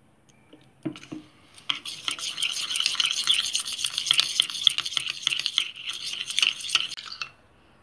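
Steel spoon stirring a thick maida flour and water paste in a stainless steel bowl: a knock about a second in, then a long run of rapid clinking and scraping strokes against the bowl that stops shortly before the end.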